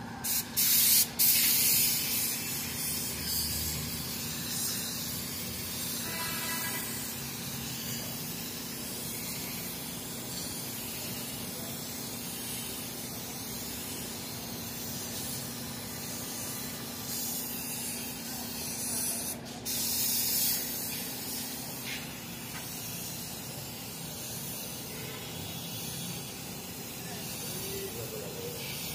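Compressed-air gravity-feed spray gun spraying paint onto car door panels: a steady hiss, broken by short pauses as the trigger is let go near the start and again about two-thirds of the way in.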